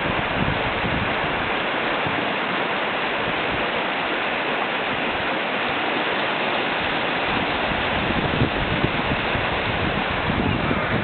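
River rapids rushing steadily: whitewater pouring over a ledge and through standing waves.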